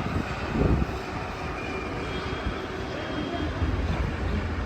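A steady low rumble of motor traffic, swelling briefly about half a second in and growing heavier near the end, with faint voices underneath.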